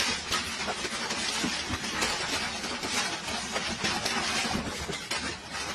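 Hail and rain pelting down: a dense, steady hiss dotted with many sharp impacts.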